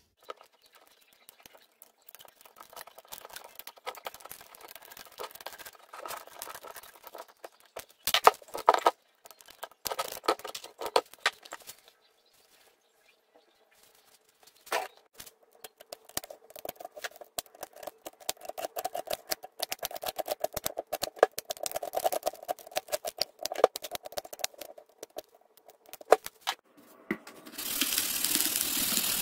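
A blade cutting through a thin plastic container mould around cured mortar, with crackling, scraping and creaking plastic and several loud sharp cracks as the plastic is split and peeled away. Near the end a steady scratchy hiss begins as the mortar head is rubbed smooth.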